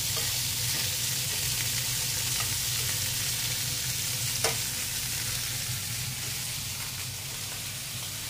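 Sausage links frying in oil in a cast iron skillet over a gas flame, a steady sizzle with a low hum underneath. About four and a half seconds in comes one sharp click as metal tongs turn the links against the pan.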